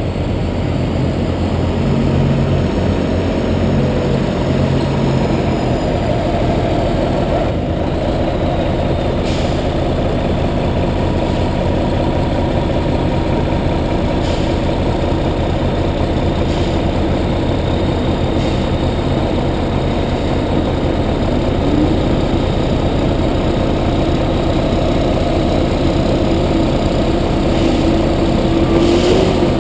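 Front-discharge concrete mixer truck's diesel engine running steadily as the truck pours concrete down its chute, with a short rising whine near the end.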